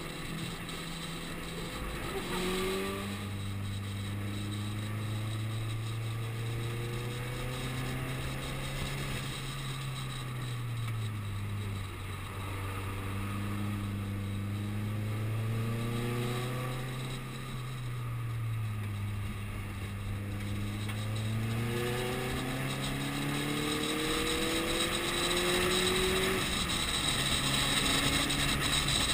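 Subaru Impreza WRX STI's turbocharged flat-four engine heard from inside the cabin on track: the engine note holds steady for long stretches, drops and climbs again several times, and rises in a series of climbing pulls near the end.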